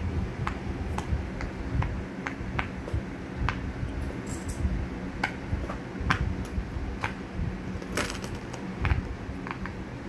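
Silicone pop-it fidget toy having its bubbles pressed in one after another by a child's fingers: a string of short pops at an uneven pace, about one or two a second.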